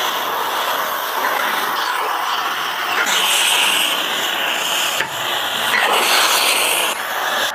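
Sliced meat and peppers sizzling in a large hot wok while a metal spatula stirs and scrapes through them, with a couple of sharp knocks of the spatula on the pan.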